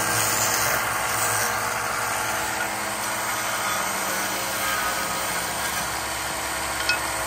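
WEN benchtop belt-and-disc sander running steadily, its motor humming under the grinding hiss of a wooden blank being sanded against the abrasive.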